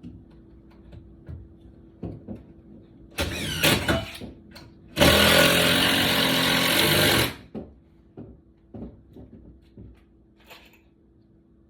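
A power tool runs in a short burst with changing pitch, then runs loud and steady for about two seconds and stops suddenly; knocks and clicks of materials being handled come between.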